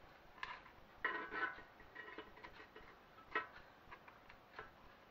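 A spatula scraping and clicking against an air fryer's perforated basket while turning burger patties over: a short scrape about a second in and a few separate light clicks.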